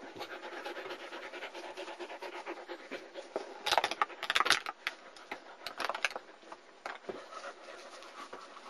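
German Shepherd puppy panting close to the microphone, with a few louder rustling knocks about four seconds in and again near six seconds.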